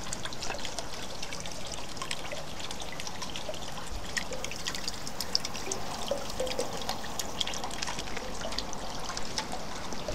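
Rain falling steadily, with water trickling and many small drips splashing.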